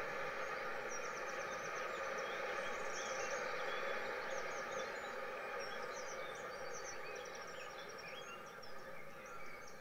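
N gauge model train running along the track, its motor and wheel noise steady and slowly fading as it draws away, with scattered short high chirps over it.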